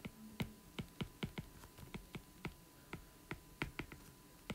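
Stylus tip tapping on a tablet's glass screen during handwriting: a string of small, irregular clicks, about four a second.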